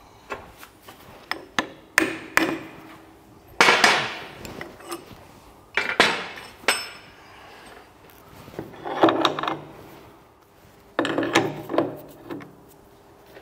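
Hammer blows on steel tooling in groups of two to four sharp metallic knocks every few seconds: a drift being struck to knock the taper-shank drill chuck out of the drill spindle so the drill can be changed.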